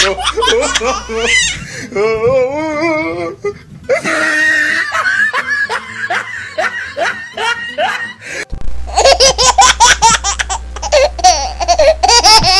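Loud laughter, several different bursts of laughing joined with abrupt cuts between them, like laugh sound effects edited over the scene.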